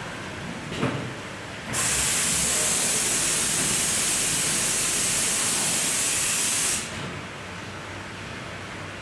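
Hanwha XD32H Swiss-type CNC lathe running with a low, steady machine noise. A short thump comes about a second in. Then a loud, steady jet hiss starts just under two seconds in and cuts off sharply about five seconds later.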